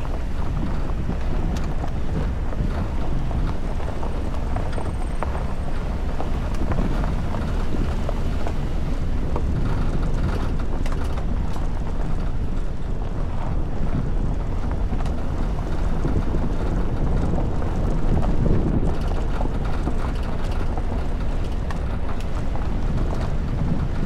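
Steady wind noise on the microphone over the low rumble of a Toyota Veloz driving along a rough dirt track.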